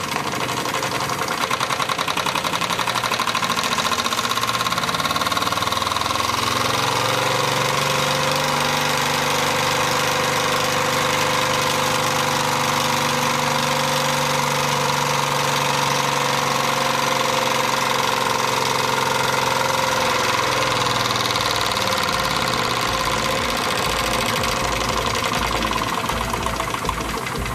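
Wilesco D24 toy steam engine running fast, its cylinder and flywheel making a rapid, steady chuffing rattle. A steady hum rides on it through the middle, and the beats become coarser and more distinct near the end.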